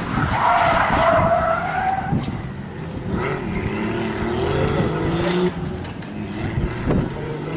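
Blue Nissan Silvia drift car sliding sideways: tyres squealing loudly for the first two seconds, then the engine running hard under throttle, its pitch rising and falling as the slide is held.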